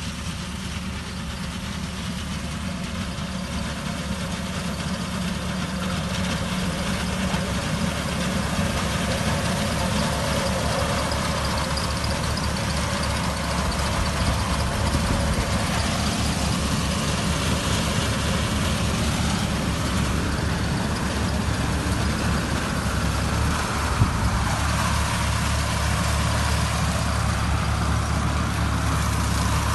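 Engine of a crop reaper machine running steadily, growing louder over the first several seconds, with a single sharp click near the end.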